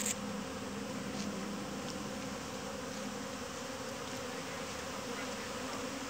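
A swarm of honeybees buzzing in a steady, continuous hum as it flies around and moves into wooden hive boxes. A short click sounds at the very start.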